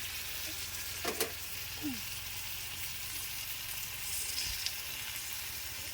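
Steady sizzling hiss, with a couple of sharp clicks and a short falling squeak.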